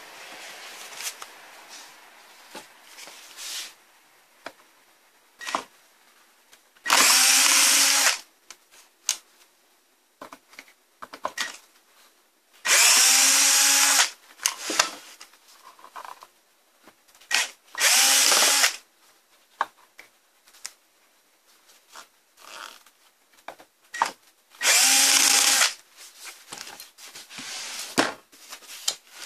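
Electric drill-driver running on screws in four short bursts of about a second each, its motor whining steadily during each burst. Small clicks and handling noises come between the bursts.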